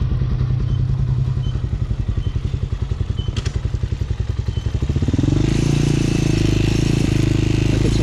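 Hawk 250 dual-sport motorcycle's single-cylinder engine running at low revs as the bike rolls slowly, then revving higher about five seconds in and holding there.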